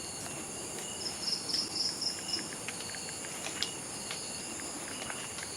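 Crickets and other night insects calling in a steady, high-pitched chorus. A louder pulsing trill joins from about a second in to about two and a half seconds in, and a few faint ticks are heard.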